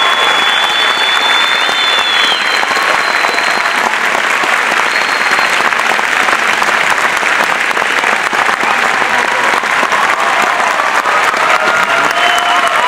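Large crowd applauding steadily after a speech, many hands clapping at once, with a thin high held tone over it for the first two seconds.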